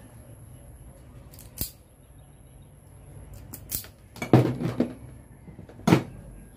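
Wire stripper snipping and clicking on an electrical wire as its insulation is cut: a few sharp snaps, the loudest cluster about four and a half seconds in and one more near the end.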